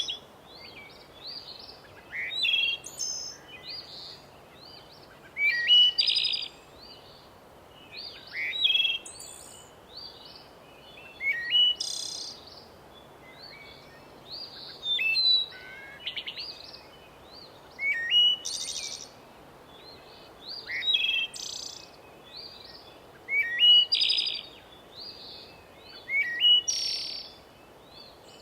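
Forest songbirds singing short, quick phrases of high notes, one phrase about every three seconds, over a faint steady background hiss.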